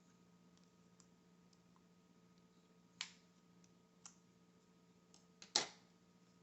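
Scissors snipping double-sided tape: a handful of separate sharp snips spread over several seconds, the loudest near the end, over a faint steady hum.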